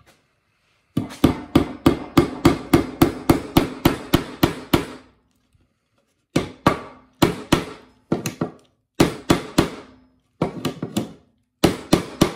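Claw hammer driving a bent-tipped nail into a pine board. There is a quick run of about a dozen blows, three or four a second, then after a pause several shorter bursts of strikes, with a low ringing under the blows.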